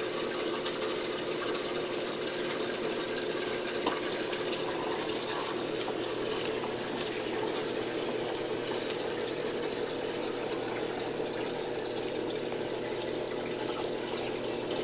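Water running steadily through a hose into a bucket, with the even hum of an electric water pump running under the rush.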